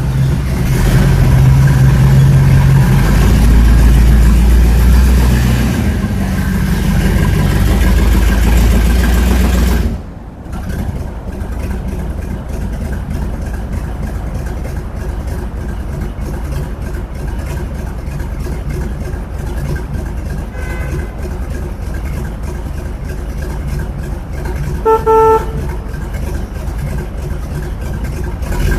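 An old car's engine running loudly inside a parking garage, then, after an abrupt cut about ten seconds in, idling more quietly and steadily. A car horn sounds one short, loud beep near the end.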